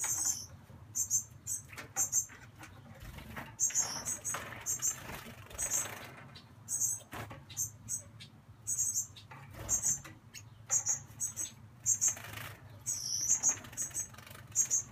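Juvenile Gouldian finches bathing in a shallow water dish: splashing and wing-fluttering, with short, very high chirps that come in quick clusters again and again.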